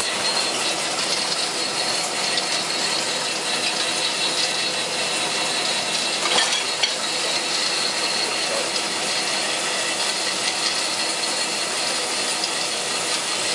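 Paper-interleaving and stacking machine running: a steady dense mechanical clatter from its drives and paper cutter, with two sharper clicks about six and a half seconds in.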